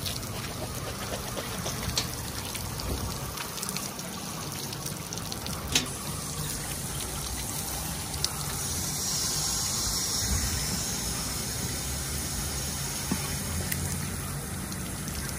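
Beach foot shower running: water spraying from the tap of a steel shower post onto a foot and splashing on the slatted platform as sand is rinsed off. A steady rush, hissier for a few seconds past the middle, with a few sharp clicks.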